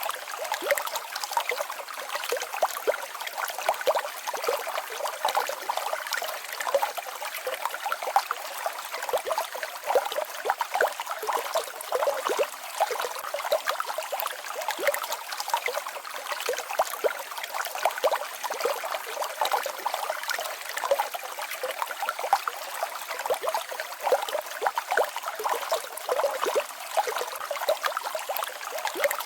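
Small mountain stream babbling and splashing over a little waterfall: a steady, busy trickling and splashing with many small spatters, bright rather than deep.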